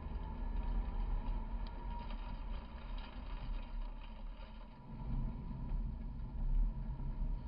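Car driving on Michelin Primacy MXM4 tyres: steady tyre and road rumble with wind noise, picked up by a camera mounted low beside the front wheel.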